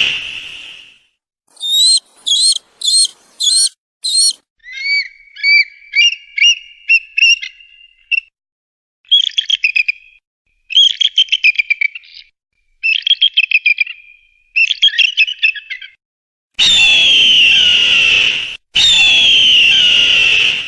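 Eagle calls played one recording after another with short silences between. First come quick runs of short, high, piping notes and chattering series. Near the end there are two long screams, each about two seconds, falling in pitch.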